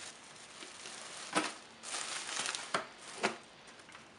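Plastic and newspaper packing crinkling as it is handled, in a few short, sharp rustles from about a second and a half in.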